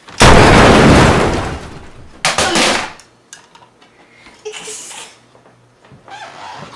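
Two loud gunshot blasts for a toy pistol being fired. The first is long and fades over about a second and a half. The second, shorter one comes about two seconds in.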